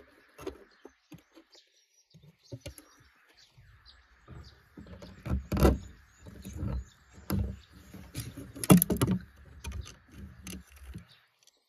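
Restored metal grass shears being handled and reassembled: irregular clicks, clacks and scrapes of the steel blades and pivot nut against each other and the wooden table, loudest about five and a half and nine seconds in.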